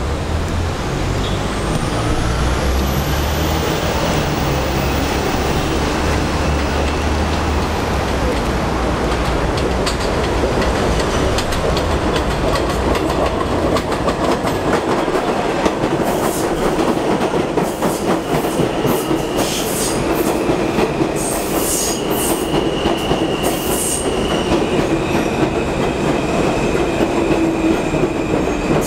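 NYC Subway R160 train approaching and pulling into the station, its wheels rumbling and clacking over the rails. From about halfway in, sharp high-pitched squeals begin, turning into a steady squeal as the train slows alongside the platform.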